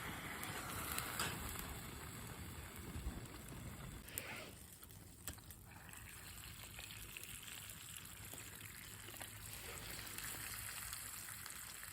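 Hamburger steak sizzling in a hot sandwich maker over a wood campfire, with a few sharp crackles from the fire.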